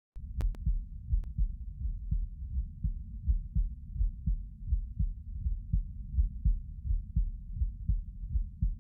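Human heartbeat picked up against the chest: a steady, regular, deep and muffled beat. A few faint clicks come in the first second or so.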